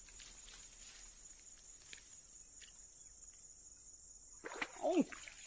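Crickets chirring in a steady high drone, with faint rustles and ticks. Near the end comes a short, louder vocal sound that rises and falls in pitch.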